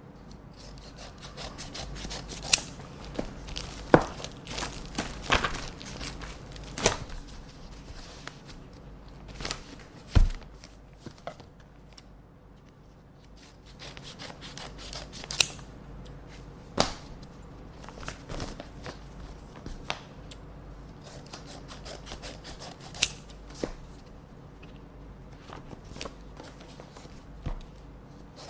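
Scissors snipping open paper envelopes, with paper rustling and rubbing as the letters are handled between cuts. Sharp snips come irregularly, with a dull thump about ten seconds in and a quieter pause around twelve seconds.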